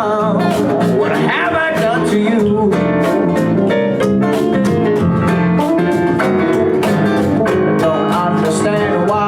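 Live band playing a blues-rock song: guitar lines over bass and steady drum hits, an instrumental passage between sung lines.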